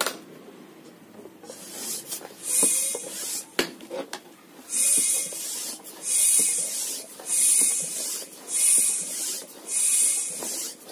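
Bicycle hand pump being worked, a hiss of air with each stroke, repeating about once every second and a bit from a second and a half in, as it pressurises a plastic bottle through a valve in the cap.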